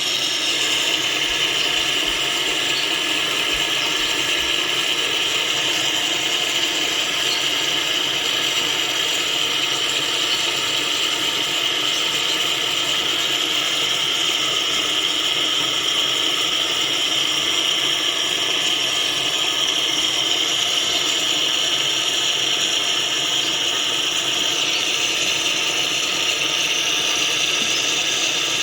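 Mr. Coffee cappuccino machine running its double milk cycle, frothing and dispensing milk into the cup: a loud, steady mechanical buzz with a high whine.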